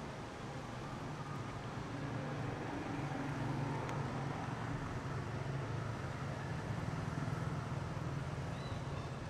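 A steady low engine hum, growing slightly louder about three seconds in.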